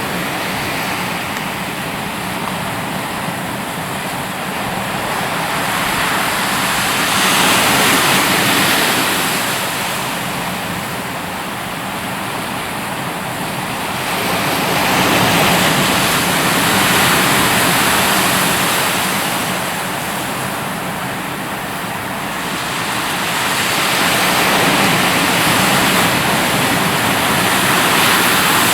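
Ocean surf washing onto a beach, a steady rush of water that swells and eases in slow surges every several seconds.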